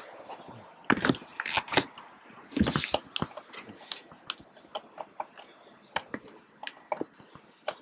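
Irregular rustles, scrapes and sharp clicks very close to a helmet-mounted camera's microphone: handling noise from gloves and jacket against the helmet. No engine is running.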